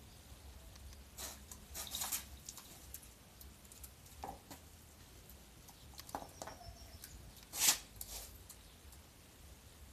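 Water splashing and dripping as a wet puppy is bathed in a tub, in scattered short bursts, loudest near the end, with a couple of faint short squeaks.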